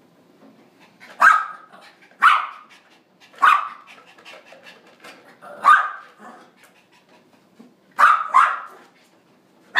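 A puppy barking: six sharp single barks at uneven intervals, the last two close together.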